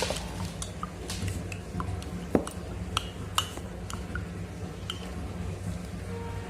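A metal spoon clinking against a cup over and over as medicine is stirred, in light irregular taps, some with a short ring.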